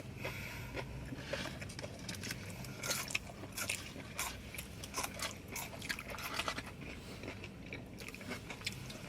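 A person biting and chewing crunchy food, with many small irregular crunches and mouth clicks over a steady low hum.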